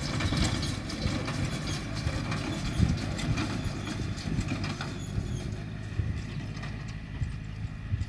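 A distant tractor engine running steadily while it pulls a small square hay baler, with uneven low knocks from the baler. The higher sounds fade from about halfway through as the rig moves away.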